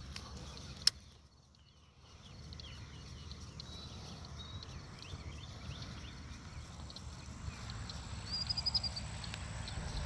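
Outdoor ambience of birds chirping over a low steady rumble, with one sharp click about a second in and a brighter trill near the end.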